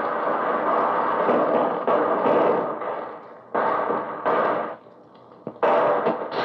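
Old-time radio battle sound effects: a rifle-grenade blast and gunfire holding loud, then dying away about three seconds in, followed by three or four short, sharp bursts of rapid rifle and automatic-rifle fire.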